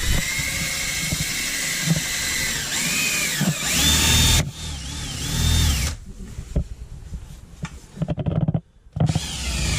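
Cordless drill boring a pilot hole up through the truck's ceiling. Its motor whine climbs in pitch about four seconds in and dips several times as the bit bites, then goes quieter and stop-start near the end.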